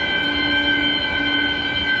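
Fire alarm sounders sounding continuously during an alarm test: a loud, steady high-pitched tone, with a lower tone pulsing on and off about once a second underneath.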